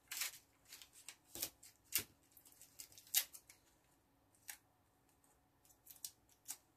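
Faint, scattered rustles and crinkles of paper and masking tape being handled: small loops of masking tape rolled between the fingers and pressed onto a paper cut-out, with a few short, sharp ticks.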